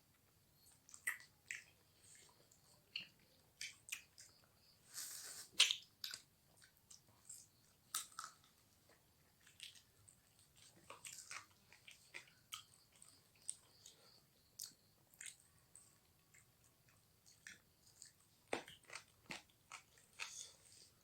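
A person chewing and biting food close to the microphone: irregular crunches and mouth clicks, with a louder stretch of chewing about five seconds in.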